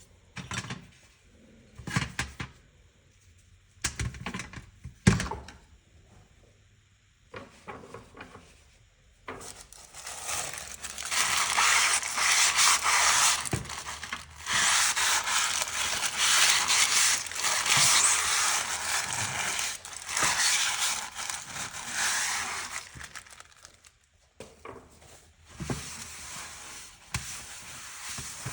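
Small carburetor parts knocking and clicking as they are handled, then a loud hissing spray into the carburetor in several pulses for about fourteen seconds, as its passages are cleaned.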